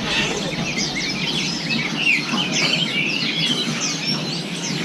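Many caged songbirds chirping and twittering at once, a dense chorus of quick high chirps over a steady low background hubbub.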